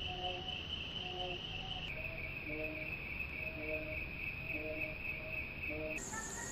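Crickets trilling steadily at a high pitch, which steps down slightly about two seconds in. Short, lower pitched calls repeat about twice a second beneath the trill.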